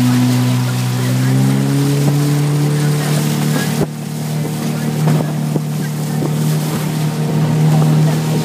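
Outboard motor of a coaching launch running steadily at speed, its pitch shifting slightly a couple of times, over wind and water noise.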